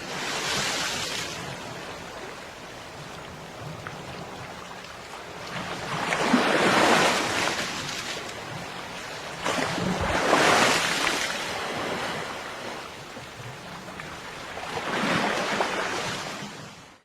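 Ocean surf breaking and washing up on a beach. The rush of water swells four times, about every four seconds, then fades out at the very end.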